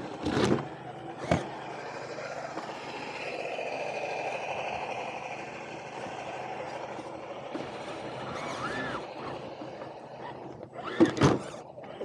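Electric motor and gear whine of an RC scale crawler creeping along, swelling for a few seconds midway, with sharp knocks from the truck bumping over the trail: two near the start and a loud cluster near the end.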